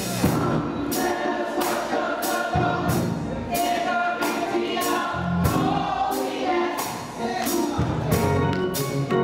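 Gospel choir singing with band accompaniment: bass notes under the voices and a steady percussion beat of sharp strikes about every two-thirds of a second.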